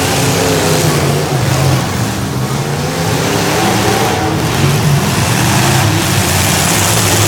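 Demolition derby cars with V8 engines running and revving together, loud and continuous.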